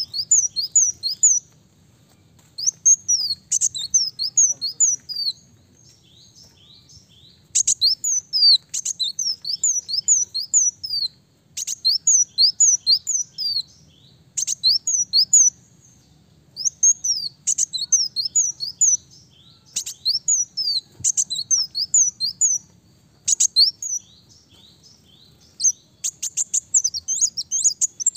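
Ruby-cheeked sunbird (kolibri daun) singing: rapid bursts of high, thin chirps, each note sliding down in pitch. The phrases last one to three seconds and are separated by short pauses.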